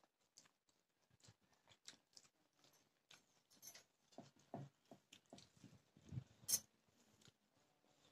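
Faint close-up eating sounds: chewing and small wet mouth clicks while eating rice with radish curry and fried okra, with one sharper click about six and a half seconds in.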